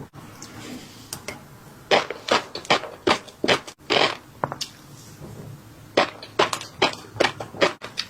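Close-up crunchy chewing of fish roe, in irregular bursts of a few crunches a second.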